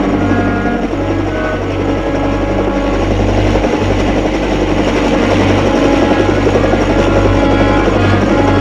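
Helicopter engine and rotor running steadily, a low rumble with a fast chopping flutter, with the orchestral score faintly underneath.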